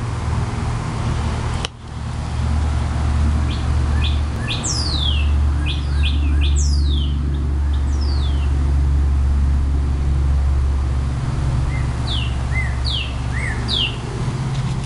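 Birds chirping with short, quick downward-sliding whistles, in two runs of calls, over a steady low rumble.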